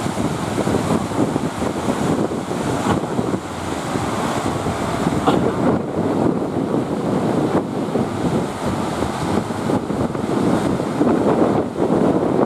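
Wind buffeting the microphone over the steady rush of breaking sea waves, with a few faint knocks.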